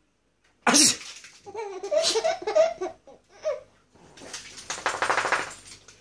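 A baby laughing. A sharp loud squeal comes about a second in, then a run of short pitched laughs, then a breathy, rapidly pulsing laugh near the end.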